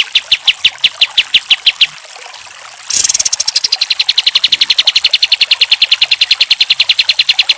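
Kapas tembak bulbul singing its rapid-fire song, a fast run of sharp repeated notes. The notes break off about two seconds in, then resume about a second later as a faster, denser run that lasts to the end.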